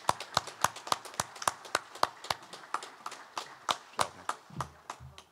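Applause from a small group of people: separate hand claps, roughly four a second, that die away near the end.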